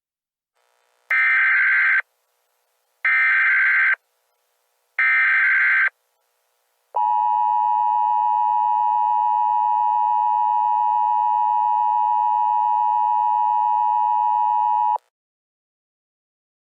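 Emergency Alert System start-of-alert signal: three short, harsh bursts of SAME digital header data, about a second each and a second apart, then the steady two-tone EAS attention signal (853 and 960 Hz) held for about eight seconds before it cuts off sharply.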